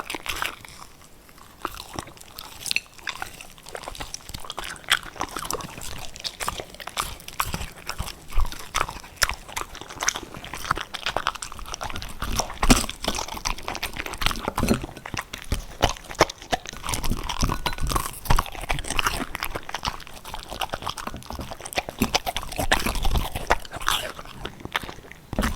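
A puppy chewing and crunching hard cookies, with a steady run of irregular crisp crunches and bites.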